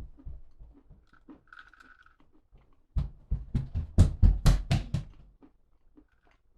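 Close-up crunchy chewing of a Chex-mix-style snack of pretzels and peanuts: quiet chewing at first, then a run of loud crunches several times a second from about three seconds in, lasting about two seconds.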